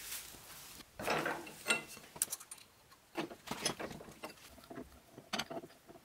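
A string of sharp metallic clinks and knocks, some ringing briefly, from steel tooling being handled during an end mill change in the milling machine's collet chuck, with a collet wrench on the collet nut.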